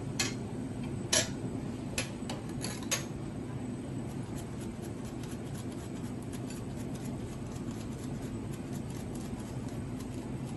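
A metal ladle clinks several times against the pan and plate in the first three seconds. Then black truffle is shaved with a handheld truffle slicer, its blade making faint, rapid ticks and scrapes over a steady low hum.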